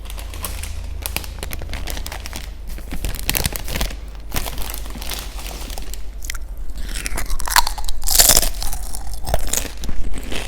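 Close-miked ASMR eating sounds: crunchy food being bitten and chewed, a run of crisp crackles with a louder crunch about eight seconds in.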